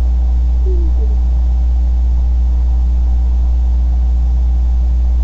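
A loud, steady low electrical hum, with a fainter steady tone above it.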